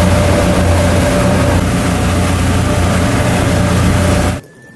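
Loud, steady machine noise: a low motor hum with a thin steady whine under a strong hiss, cutting off suddenly near the end.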